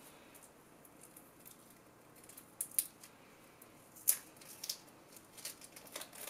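Faint, sharp crinkles and ticks of a lithium polymer cell's foil and plastic wrap layers being peeled apart by hand. They come one at a time after a quiet first two seconds, the loudest about four seconds in.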